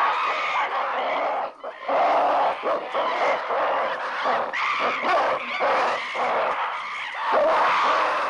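A troop of man-apes screaming and hooting all at once in an agitated display, many shrieking calls overlapping, with a brief lull about one and a half seconds in.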